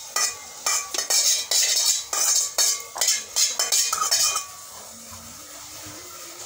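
A metal spoon scraping and clinking against the inside of an aluminium cooking pot in a quick run of strokes for about four seconds, then stopping.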